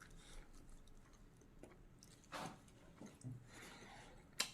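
Quiet mealtime sounds: faint chewing with a few small knocks and clicks of tableware, the sharpest click near the end.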